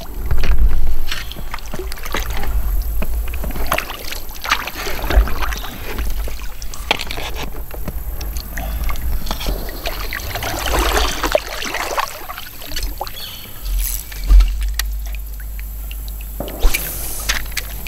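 Double-bladed kayak paddle stroking through river water, with splashing and dripping and scattered sharp knocks and clicks.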